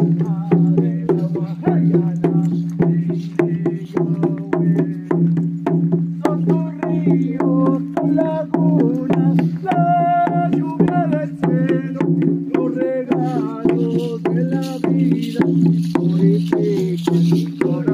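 Voices singing a ceremonial song to a steady percussion beat of about three strikes a second, over a continuous low drone.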